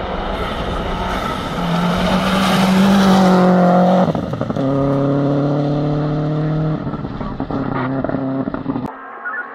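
Rally car at racing speed on a gravel stage, its engine held at high revs as it approaches, with a hiss of tyres on gravel loudest as it passes about three seconds in. The engine note drops sharply about four seconds in, holds high again as the car draws away, and fades before the sound cuts off suddenly near the end.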